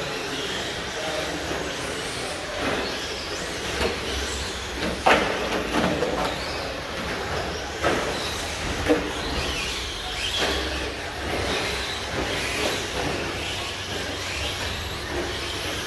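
RC short course trucks racing on a dirt track: a steady mix of motor whine and tyre noise that rises and falls as the trucks pass, with several sharp knocks from landings and bumps, the loudest about five seconds in.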